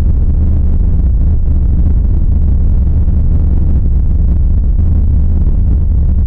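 A loud, steady low droning rumble that holds level without breaks or changes in pitch: an eerie ambient drone made as a creepy sound effect.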